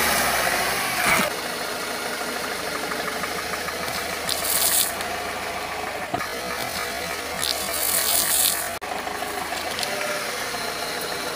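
Car engine idling steadily, with a few brief crunches as the tyre rolls over and crushes objects in its path.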